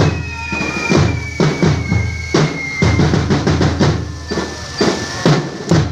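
Ground fireworks set piece going off: an irregular run of sharp bangs, some in quick succession, over a thin whistle that slowly falls in pitch and fades about halfway through.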